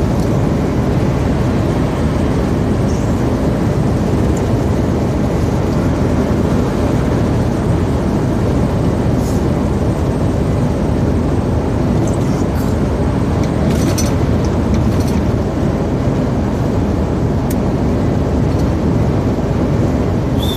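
Steady drone of a lorry's engine and tyres on a wet motorway at cruising speed, heard inside the cab.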